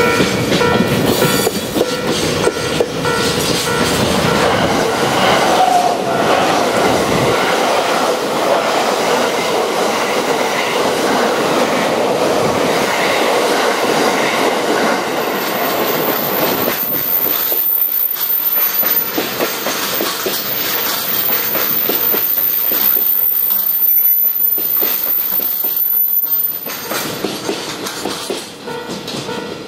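Container wagons of a freight train clattering past over the rails. Then a 683 series Thunderbird electric express runs past close by, and its sound fades away near the end.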